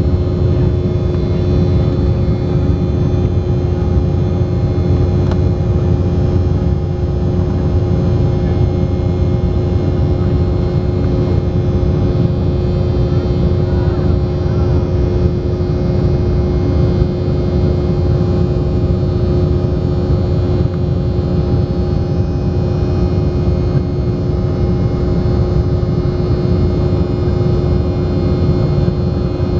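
Cabin noise of an Embraer 190 airliner climbing after takeoff: a steady low rumble from its General Electric CF34-10E turbofan engines and the rushing air, with a steady droning hum over it.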